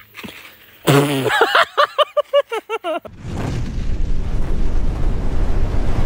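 A rapid run of high, arched, pitched calls lasting about two seconds. It then cuts off abruptly about three seconds in to a loud, deep rumbling noise like an explosion sound effect, which carries on steadily.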